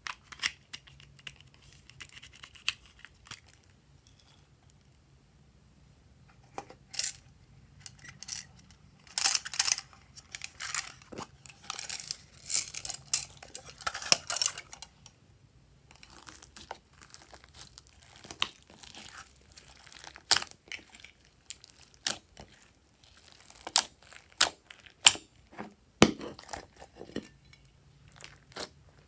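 Small plastic toy cases handled, clicked and opened by hand, then slime pressed and squished: scattered sharp clicks with bursts of crackling and rustling, densest a third of the way in.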